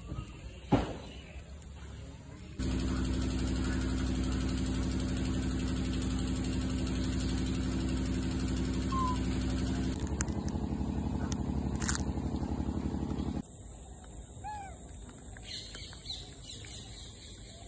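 A steady motor hum with a low, even pitch, starting and stopping abruptly, with a sharp click near its end. After it, small birds chirp a few times.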